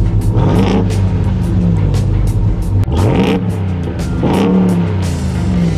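Ram TRX's supercharged 6.2-litre Hemi V8 revved through its exhaust in three throttle blips, each rev rising and falling back to idle, about half a second, three seconds and four and a half seconds in. Background music with a steady beat plays over it.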